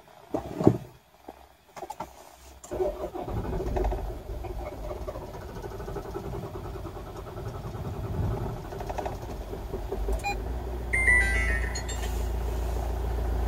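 Toyota 2.2 D4D four-cylinder common-rail diesel cranking at length on a cold start before it catches about ten seconds in and settles into running. A short electronic beep sounds as it fires. This is the prolonged cold-start fault the engine shows after sitting overnight.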